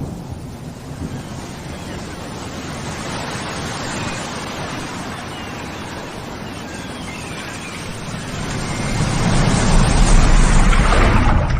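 A steady rushing noise that grows louder about eight seconds in and stops suddenly at the end.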